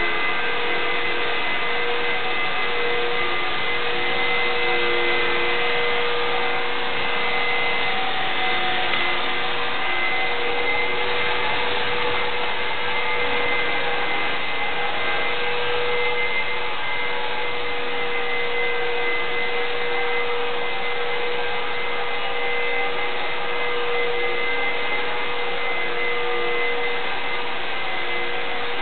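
Vacuum cleaner running steadily across a rug and tile floor, its motor giving a constant whine over the rush of air.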